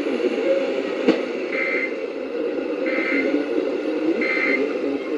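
Emergency Alert System digital data bursts received over the radio: three short two-tone warbling beeps about 1.3 seconds apart, the end-of-message code that closes an alert. They sit over a steady buzzy, noisy radio signal.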